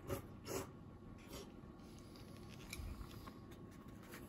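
Faint handling noises: three short scratchy rustles in the first second and a half, then a few light clicks.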